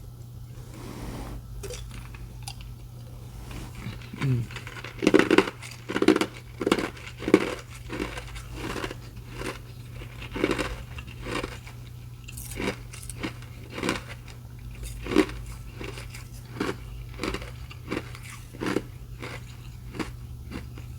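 Ice being chewed close to the microphone: a run of crisp crunches, quickest and loudest about five to eight seconds in, then single crunches roughly once a second.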